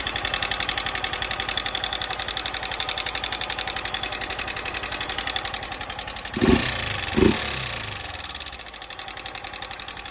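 A 160 cc single-cylinder motorcycle engine idling with a fast, steady metallic clatter from the engine, with two brief revs about six and a half and seven seconds in. The clatter is the engine noise one mechanic put down to the valves or the cam chain.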